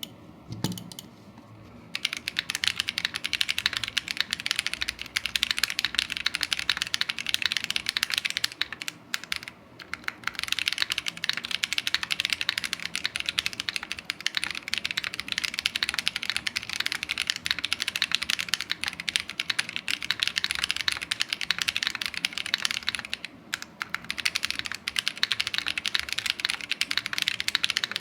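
Fast continuous typing on a mechanical keyboard: a KBD67 Lite R2 in an aluminium case with a brass weight, fitted with stock AEBoard Naevy switches and screw-in Cherry stabilisers. The typing starts about two seconds in and breaks off briefly twice.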